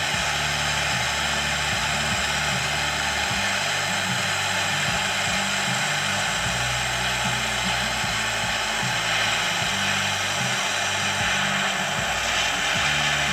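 Propane torch burning with a steady hissing rush of flame, heating a seized strut bolt to break it loose.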